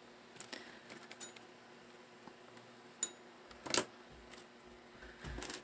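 Faint handling sounds of hot-gluing a satin ribbon leaf onto a felt-backed headband: a few scattered small clicks and taps from the glue gun and the materials, the clearest a little under four seconds in.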